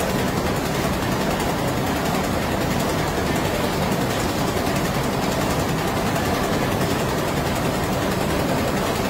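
M370 rotary label finishing machine running with the label web feeding through its rollers: a steady, even mechanical running noise.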